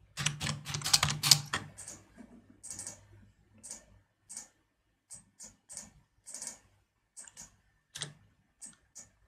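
Typing on a computer keyboard: a quick run of keystrokes in the first two seconds or so, then single key clicks spaced out.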